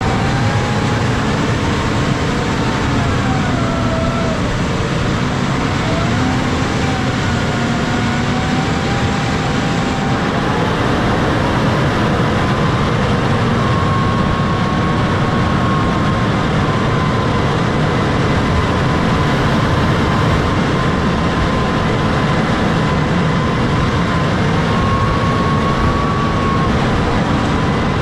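John Deere 6155R tractor's six-cylinder diesel running steadily under load while pushing a front snow plow through snow, with a thin whine that drifts up and down in pitch throughout.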